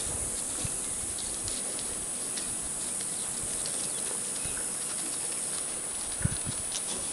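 Steady outdoor background hiss with a high-pitched band, scattered faint clicks and a few soft low thumps near the end.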